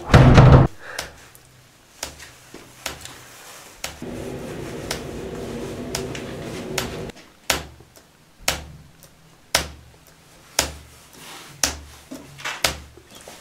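A keyboard's space bar pressed once every second, giving sharp clicks with a low thud at a very even pace from about halfway through. Earlier there is a loud thump at the start and a steady hum for about three seconds.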